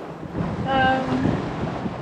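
Wind buffeting the microphone over the wash of the sea around a sailboat under way, with a short held vocal sound, a hum or drawn-out 'mm', about half a second in.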